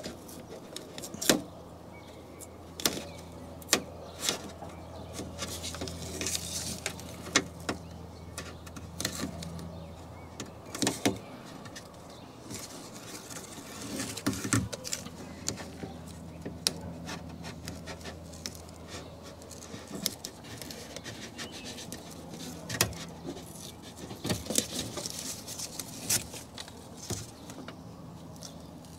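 Irregular light clicks, taps and rustles of hand work at a car door's steel inner skin: self-adhesive foam strip being laid around the speaker aperture, with plastic connectors and wiring knocking against the metal, over a faint low hum.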